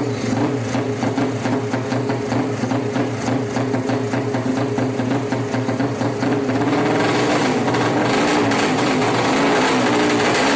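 Suzuki Satria FU race engine bored out to 200cc running. It runs with a wavering, uneven beat at first, then from about two-thirds of the way in it holds steadier and louder at higher revs.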